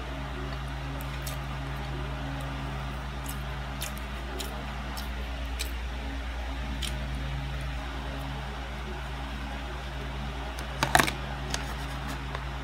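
Steady low hum of a room fan or air conditioner, with faint scattered clicks of eating and plastic cutlery. A quick cluster of sharper, louder clicks comes near the end.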